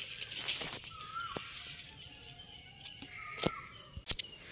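Garden birds chirping: a rapid series of high chirps, about eight a second, and a few short whistled notes. Scattered light clicks run through it, with two sharper knocks near the end.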